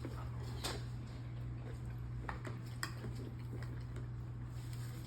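Scattered light clinks and taps of cutlery against plates and dishes during a meal, over a steady low hum.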